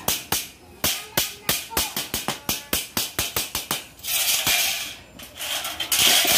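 Claw hammer striking a metal furring channel, quick ringing taps about three a second as the thin sheet metal is bent into shape, broken a little past halfway by a rasping noise.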